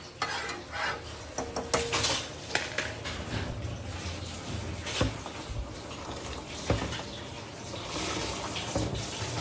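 Steel pots and utensils clinking on a gas stove, with several sharp clinks, while milk tea is made in a steel saucepan. Near the end, liquid is poured into the pan.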